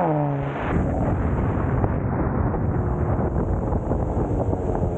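Kia Stinger GT2's twin-turbo V6 revving hard under acceleration, its pitch dropping abruptly about half a second in as it shifts or lets off. Then a loud, rough rumble with crackling, exhaust and road noise, with no steady engine note.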